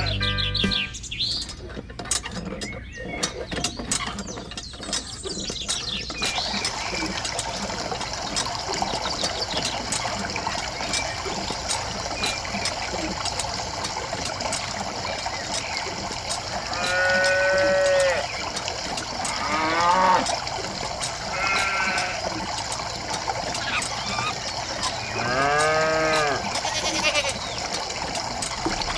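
Bleating from sheep or goats, four separate wavering calls over a steady hiss, with a run of clicks and taps in the first few seconds.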